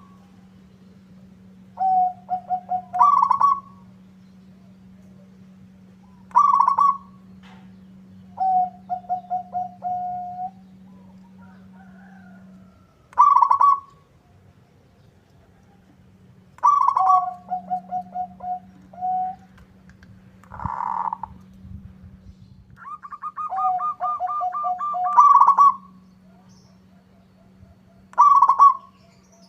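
Zebra dove (perkutut) cooing in repeated phrases every few seconds: a loud clear note, then a quick rolling run of lower notes. A steady low hum runs underneath.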